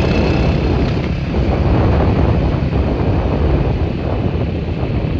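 Loud, steady rush of wind buffeting the microphone.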